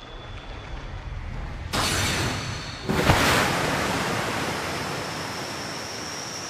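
Dramatic sound-effect build-up. A low rumble swells into a rushing noise that jumps up suddenly at about two seconds, and a sharp hit comes about three seconds in. The rush then slowly fades under a thin, high, slightly rising tone.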